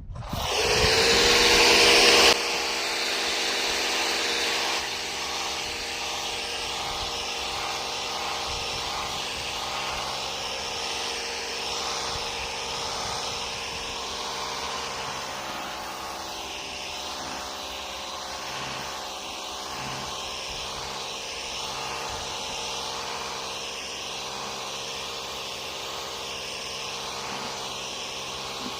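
Pressure washer running steadily, the hiss of its water jet over the machine's steady drone. It is loudest for about the first two seconds, then settles.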